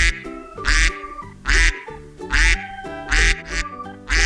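Duck quacking over cheerful background music, about five loud quacks evenly spaced a little under a second apart, each landing with a low beat of the music.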